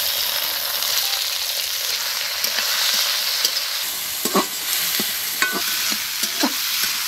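Chopped tomatoes and onions sizzling steadily in hot oil in a metal kadai. From about four seconds in, a metal spatula stirring them scrapes and clicks against the pan.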